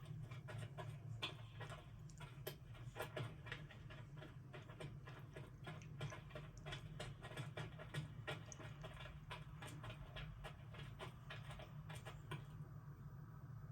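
Rapid, irregular light clicking and tapping, several ticks a second, over a steady low hum; the clicks stop near the end.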